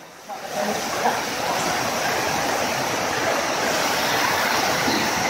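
Steady rush of heavy rain and fast-flowing floodwater, coming in about half a second in and holding even.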